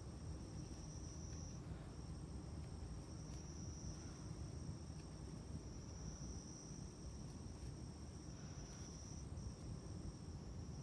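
Quiet room noise with a faint, steady high-pitched tone running through it, which breaks off briefly twice.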